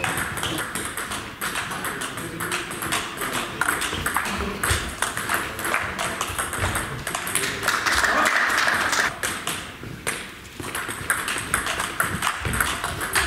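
Table tennis rally: sharp clicks of the ball off the rackets and table, several a second, with more ball clicks from a neighbouring table and a short lull about ten seconds in.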